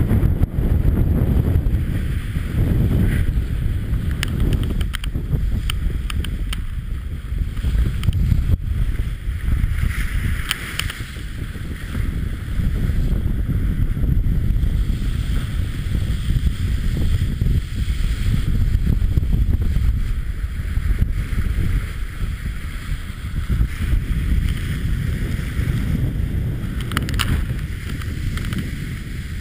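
Wind buffeting the microphone in a heavy, gusting rumble, over the rushing hiss of water and spray off a Class 40 racing sailboat's hull moving fast through the sea, with a few sharp knocks.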